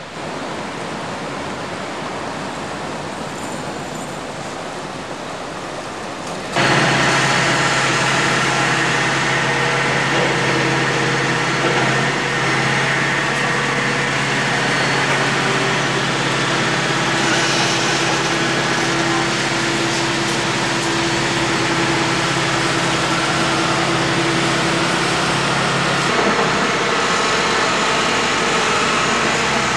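Steady outdoor city traffic noise with a low engine hum on top. It jumps abruptly louder about six seconds in, after quieter steady hiss, and the hum drops out near the end.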